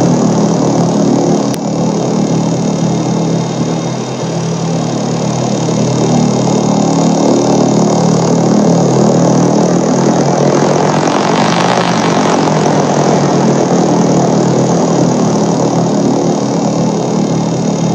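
Steady low electronic drone with a noisy rumbling wash over it, swelling in hiss about two-thirds of the way through: a 'space sound' sonification presented as the sound of a dwarf planet.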